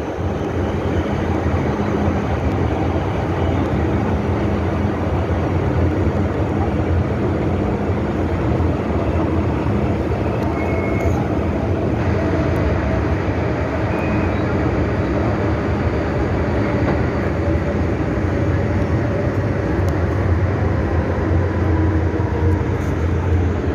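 A Hong Kong MTR M-train (Metro-Cammell electric multiple unit) heard from inside the car as it runs at speed through a tunnel. The wheels on the rails make a loud, steady rumble, and a low hum runs under it.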